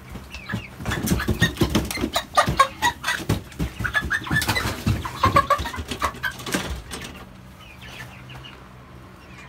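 A broiler chicken flapping its wings hard and calling out a few times as it is caught and held upside down by the legs, with scuffling and clatter; the commotion dies down after about seven seconds.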